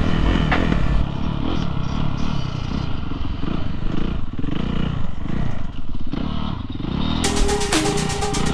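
Dirt bike engine revving up and down while riding, its pitch rising and falling over and over. Background music with a beat plays over the start and comes back near the end.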